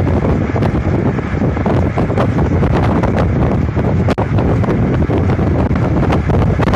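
Loud wind buffeting the microphone, a steady low rumble with scattered crackles through it.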